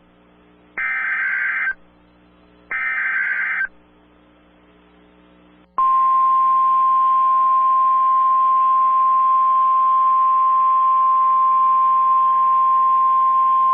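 Emergency Alert System broadcast on NOAA Weather Radio. First come the end of one and then two more short buzzy SAME digital header bursts, about a second apart. About six seconds in, the long, loud, steady 1050 Hz warning alarm tone starts, the signal that opens a tornado warning.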